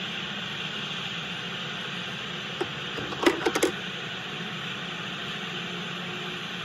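LEGO train cars rolling past on plastic track, a steady whirring rattle, with a quick run of sharp clicks about three seconds in.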